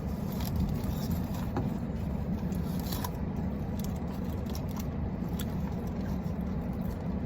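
Steady low hum of a parked car with its engine running, heard inside the cabin, with a few light clicks and crinkles now and then.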